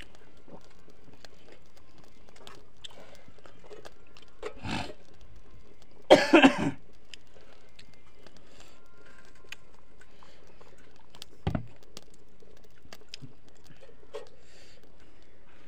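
A man eating rice and curry by hand from a metal plate: quiet chewing and small clicks, with one short cough a little before the middle, the loudest sound, and two briefer sounds before and after it.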